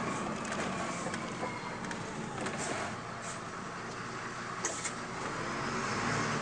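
Cabin sound of a 2002 MAN 12.223 diesel city bus on the move: steady engine and road noise. A faint whine falls in pitch over the first two seconds, and a few sharp clicks from the cabin come about two and a half, three and a half and five seconds in.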